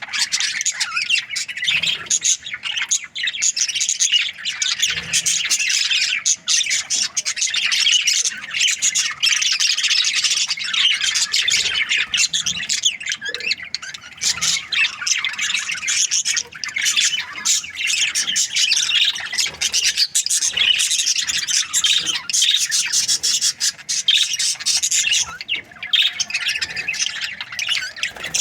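Budgerigars chirping and squawking without pause, a dense stream of short high chirps.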